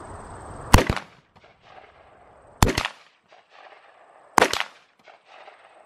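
Smith & Wesson M&P15 rifle firing three single shots of standard 5.56 ammunition, a little under two seconds apart. Each shot has a short echo trailing off after it.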